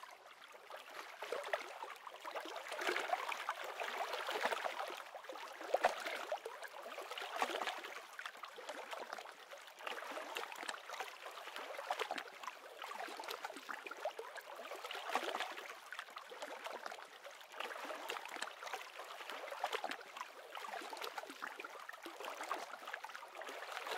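Small waves lapping and gurgling close to the microphone, a fine splashy crackle that swells and eases every second or two.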